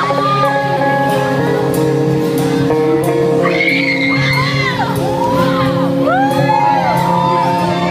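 Live rock band playing — acoustic guitar, bass and drums — with a female singer, in a large hall. Fans shout and scream over the music, the high rising-and-falling cries strongest from about three and a half seconds in.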